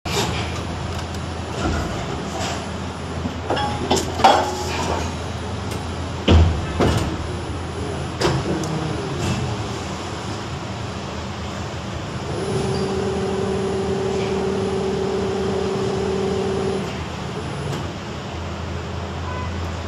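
Injection molding machine running with a steady hum. It gives several sharp metallic clunks in the first half, then a steady whine for about four seconds that stops suddenly.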